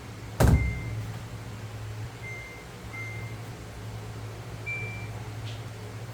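A loud click, then a new Samsung washing machine's control panel beeping as buttons are pressed: three short beeps at one pitch, then one slightly higher beep, over a steady low hum.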